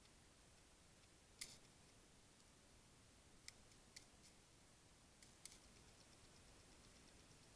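Near silence broken by about five faint, sharp clicks, the first about a second and a half in being the loudest, with a faint run of light ticks near the end.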